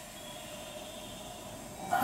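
Faint, steady hum of a stopped JR West 227 series electric train idling at the platform, with thin steady whine tones from its onboard equipment. A louder hiss cuts in abruptly at the very end.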